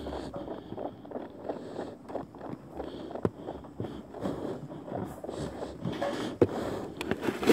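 Handling noise from a phone being gripped and moved about: irregular rubbing and small knocks on its microphone.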